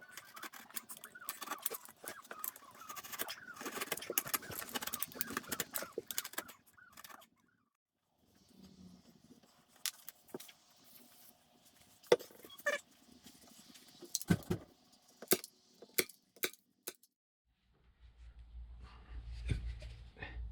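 Clattering and rustling of objects being handled for several seconds, then after a short pause a series of separate sharp knocks, and a low hum that starts near the end.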